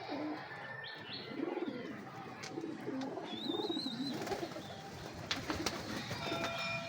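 Domestic pigeons cooing in low, wavering calls, with a brief higher chirp about three seconds in and a few sharp clicks a little after five seconds.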